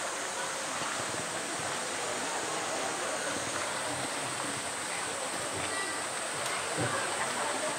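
Steady rush of running water, with faint indistinct chatter from onlookers.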